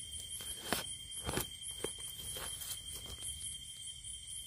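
Steady, high-pitched insect drone with an evenly pulsing shrill layer, broken by three short, sharp crackles in the first two seconds.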